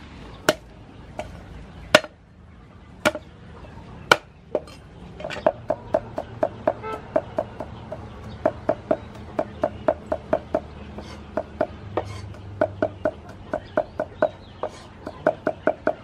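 A large knife chopping on a round wooden cutting board. It makes a few single cuts in the first seconds, then quick rhythmic chops of about five a second, in runs broken by short pauses.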